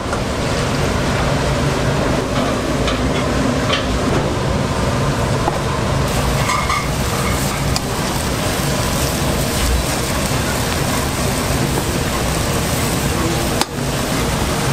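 Steady restaurant-kitchen cooking noise, with a brief drop in level near the end.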